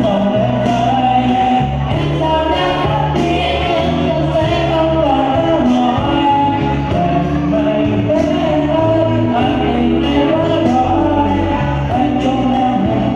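A man singing a song into a microphone, amplified, over a backing accompaniment with a moving bass line and a steady beat.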